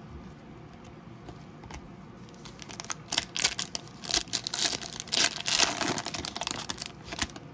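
Foil wrapper of a Garbage Pail Kids Chrome trading-card pack crinkling and tearing as it is ripped open: a run of sharp crackles from about two and a half seconds in until just before the end.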